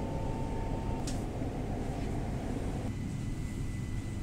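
Passenger train running, heard from inside the carriage: a steady low rumble, with a thin steady tone in the first second and a light click about a second in.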